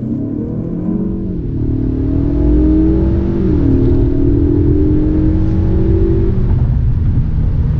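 2021 Ford Mustang EcoBoost's 2.3-litre turbocharged four-cylinder accelerating at full throttle from a standstill. Its pitch climbs and drops twice, at quick upshifts of the 10-speed automatic about one and a half and three and a half seconds in. About six seconds in the engine note falls away to a lower steady hum as the throttle eases.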